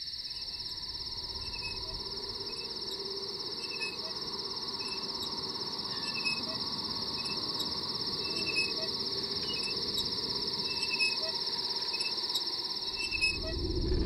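Night insects chirping in a steady, high, fast-pulsing trill, with scattered short chirps. A low rumble swells in under it near the end.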